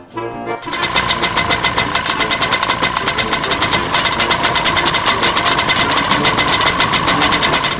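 The two small single-cylinder two-stroke engines of a Colomban Cricri twin-engine microlight running together with propellers turning, a loud buzzing engine note with a rapid, even beat. It cuts in suddenly about half a second in.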